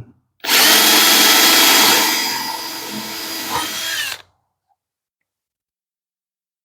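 Power drill with a brad point bit boring a dowel hole into a wooden board, running for about four seconds. It is loudest for the first second and a half, then runs lighter, and its whine drops in pitch as it stops.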